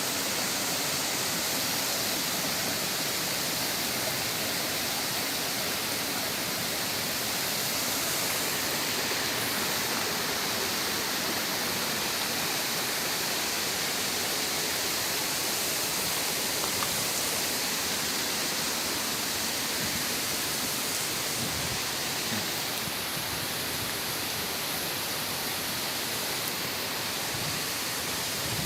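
Steady, unbroken rush of flowing water from a waterfall and mountain stream.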